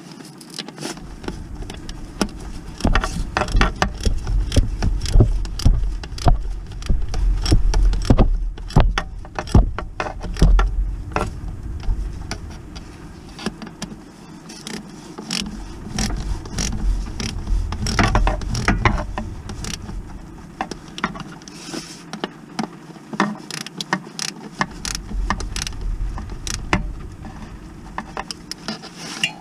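Hand ratchet and socket clicking in runs with metal clinks as the bolts of a gearbox's concentric slave cylinder are worked, over a low rumble through much of it.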